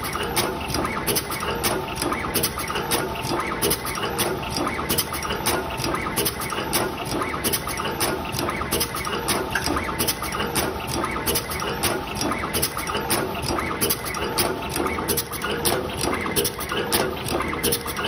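Automatic wire crimping and twisting machine running: rapid, uneven clicking and tapping from its mechanism, over a steady tone.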